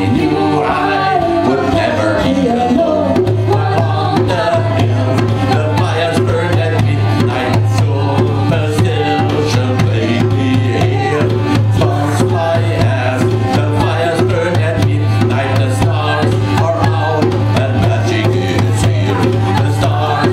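Live folk music: a djembe played by hand under a woman's singing voice, over a steady low drone from a hurdy-gurdy.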